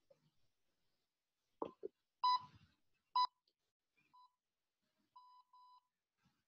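Electronic interval-timer beeps, a pure tone around 1 kHz: two loud short beeps about a second apart, then a faint single beep and three quick faint beeps, marking a change of workout interval. Two dull thumps come just before the first beep.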